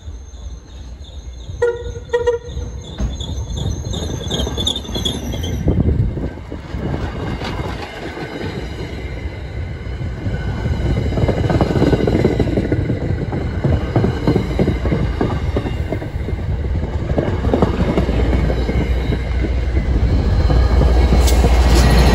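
MBTA commuter rail train passing close by: a short horn blast about two seconds in, then the coaches rolling past with their wheels clacking over the rail, and the diesel locomotive's low engine rumble building near the end as it draws level.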